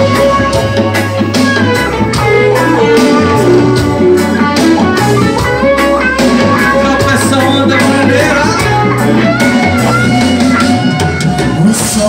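Live reggae band playing an instrumental passage with no vocals. A guitar melody plays over held bass notes that change every second or so, and a drum kit keeps a steady beat.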